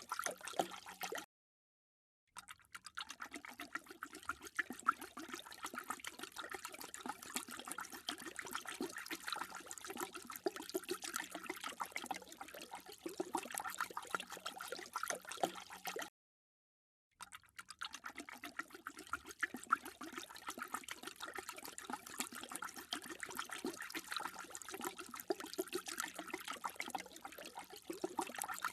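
Dog lapping water with a quick run of wet laps and splashes. The sound is cut into three separate takes by two brief gaps of dead silence, one about a second in and one just past the middle.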